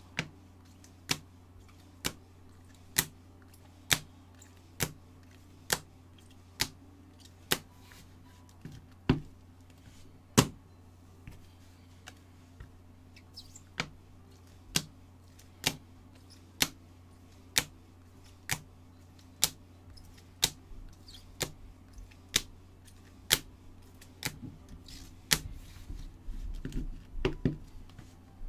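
Baseball cards in hard plastic holders clicking as they are set down one at a time on a stack, about one click a second, with some handling rustle near the end.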